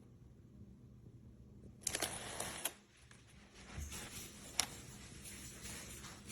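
Handling noises: a short rustle about two seconds in, then quieter shuffling with one sharp click near the middle.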